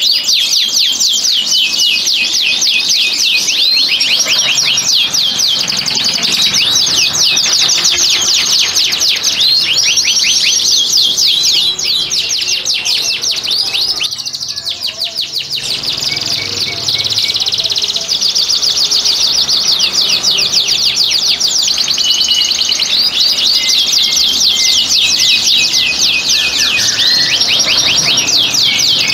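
Domestic canaries singing in long, fast rolling trills, the rattling 'ngerek' song of males in breeding condition. The song runs almost without a break, with a short lull about halfway.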